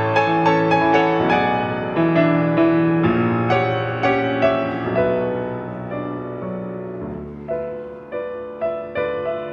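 Piano playing a classical piece. A close run of struck notes thins out and softens about five seconds in, then single notes come back at a steady pace near the end.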